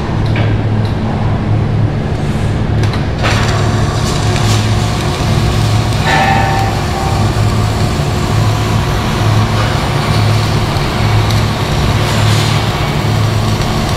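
Heavy machinery running with a steady low drone, with a few short knocks and a brief squeak about six seconds in.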